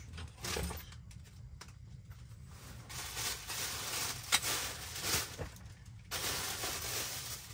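Rustling of a padded jacket and nylon bags being handled and unpacked, with a few sharp clicks in the middle.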